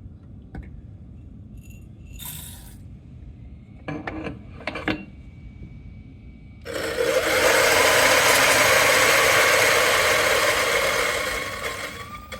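A few light clicks and knocks, then a Turin DF83V flat-burr grinder grinding coffee beans: a steady grinding noise starts about seven seconds in and fades away near the end as the dose runs out.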